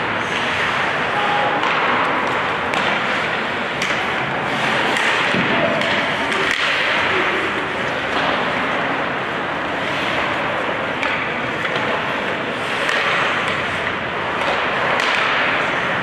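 Ice hockey play heard from rinkside: a steady scrape and hiss of skates on ice with scattered sharp clacks and thuds of sticks, puck and boards, and voices of players and spectators in the background.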